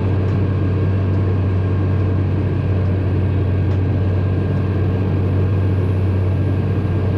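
Heavy farm machine engine running steadily under load: a loud, even, low drone that holds constant.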